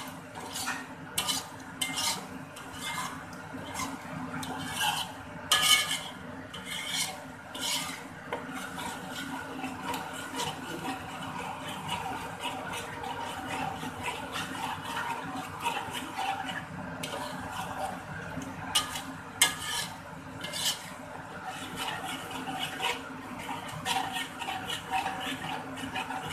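Wooden spatula stirring thick blended chili paste (sambal) in a wok, scraping steadily around the pan with sharp knocks against the metal now and then, most of them in the first several seconds and again past the middle.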